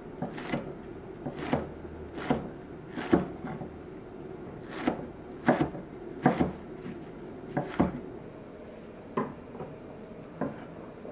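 Chef's knife slicing scallions into thin rounds on a wooden cutting board: a sharp knock of the blade on the board at each cut. About a dozen knocks come unevenly, roughly one a second, with short pauses between runs.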